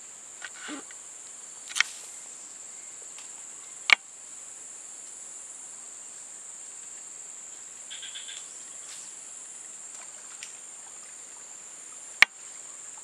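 Steady, high-pitched drone of insects. Three sharp clicks sound over it, about two seconds in, about four seconds in and near the end.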